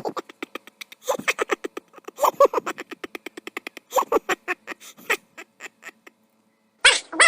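Rapid duck-like quacking chatter in several quick bursts, used as a comic sound effect. Near the end a louder, different call cuts in.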